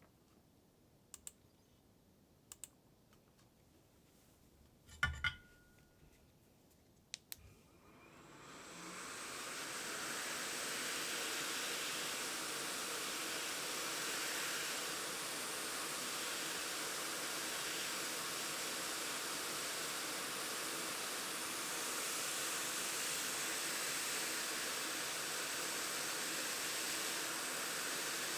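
A few light clicks and a knock, then, about eight seconds in, the ATTEN ST-862D hot air station's air flow starts, rising over a couple of seconds to a steady hiss of blowing air.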